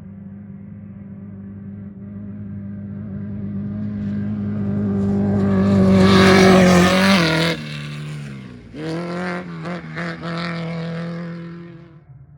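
Off-road race vehicle's engine approaching at speed, growing louder to a peak about six to seven seconds in and dropping in pitch as it passes. It then revs back up with several quick lifts of the throttle and fades near the end.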